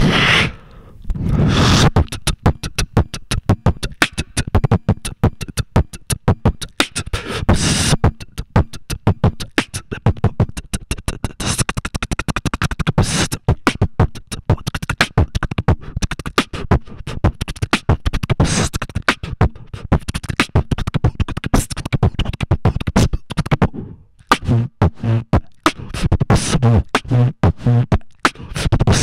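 Human beatboxing into a handheld microphone cupped to the mouth: a fast stream of mouth-made drum sounds, with a few longer breathy sweeps. Near the end, a pitched low bass hum pulses in rhythm under the beat.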